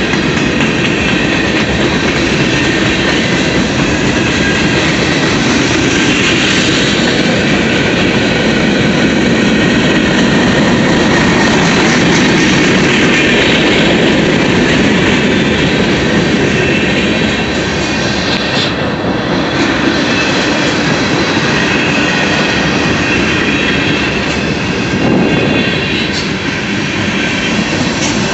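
Freight train cars (boxcars, then covered hoppers) rolling past at close range: a loud, steady rumble of steel wheels on the rails, easing slightly in loudness in the second half.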